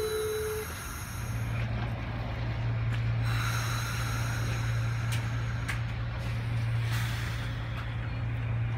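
Amtrak Adirondack passenger cars rolling past: a wheel squeal dies out within the first second, then a steady low hum with patches of hiss and a few sharp clicks.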